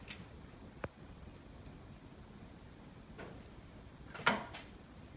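A few separate sharp, light clicks and taps over quiet room tone, the loudest a little past four seconds in.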